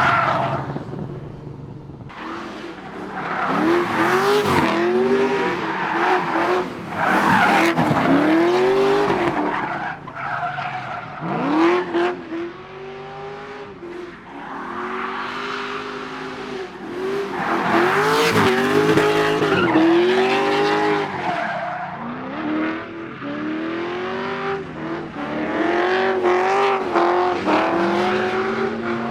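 A 5.7-litre LS1 V8 in a Nissan R32 being driven hard while drifting, revving up and falling back over and over as the throttle is worked, with tyres skidding underneath. The engine sound swells and fades repeatedly.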